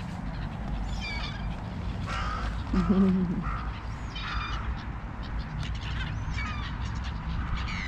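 Crows and black-headed gulls calling, many short harsh calls overlapping one after another, with one louder, lower-pitched sound about three seconds in.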